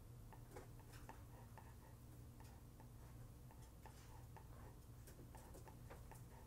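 Near silence: low room hum with faint light clicks scattered irregularly throughout.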